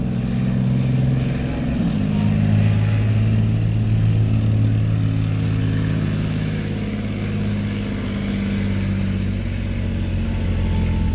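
Leopard 2A6 tank's 1500 hp V12 diesel running hard under load while dragging a weighted tractor-pulling sled. The engine note drops slightly about two seconds in, then holds steady.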